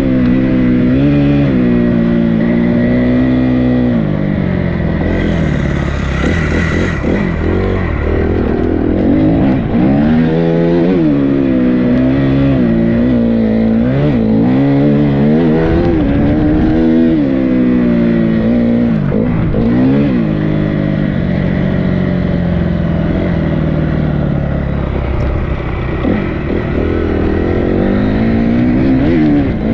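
Dirt bike engine running under load, its pitch climbing and dropping over and over as the throttle is opened and closed and the gears change.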